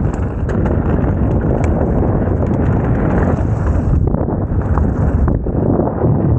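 Mountain bike riding fast down a dirt trail: constant tyre and trail noise with rattling and knocks from the bike over bumps, and wind buffeting the microphone.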